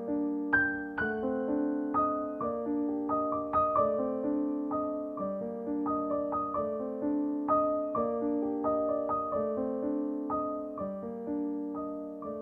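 Background piano music: a slow, gentle melody of struck notes over chords, each note fading after it is played.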